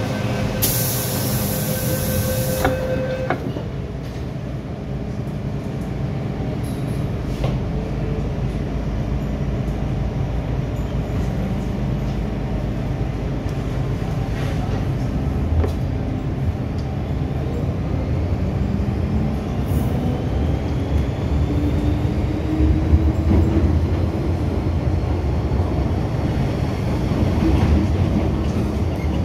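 MTR M-Train electric multiple unit running on the Kwun Tong Line, heard from inside the car: a steady electronic tone with a hiss for about two seconds near the start, then a continuous low rumble of wheels on rail. From about the middle on, the traction motors whine rising in pitch as the train picks up speed.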